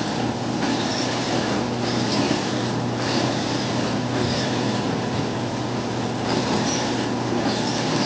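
Electric dough roller running with a steady motor hum and a rasping sound that repeats about once a second as bread dough is worked through its rollers to smooth it.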